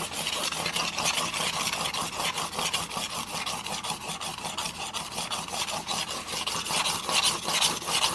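Steel single-bevel broadhead in a roller sharpening guide, stroked rapidly back and forth across an 800-grit diamond plate. The rasping scrape comes as a fast, even run of short strokes, working up a burr on the edge.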